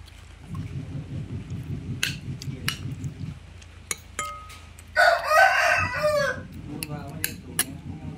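A rooster crows once about five seconds in, a single call of just over a second that drops in pitch at the end. Before and after the crow there is a low rumble and a few sharp clicks.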